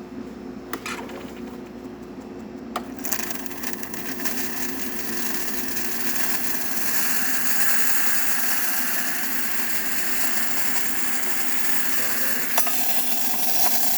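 Gaggia Accademia espresso machine's steam wand opened about three seconds in after a couple of clicks, then hissing steadily under good pressure over a steady low hum from the machine.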